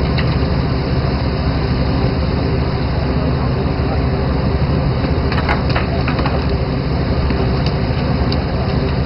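Steady rumble of a fishing boat's engine under a rush of water along the hull, with a short cluster of sharp knocks and clatters on deck about five to six seconds in.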